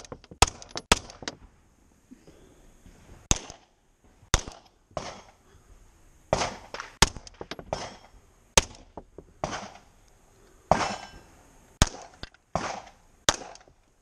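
Handgun shots fired from inside a car's cabin, about fifteen in irregular pairs and short strings with pauses between.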